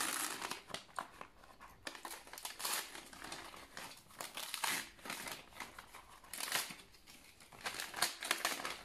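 Gift wrapping paper crinkling and tearing as it is pulled off a cardboard box by hand, in irregular rustles and rips.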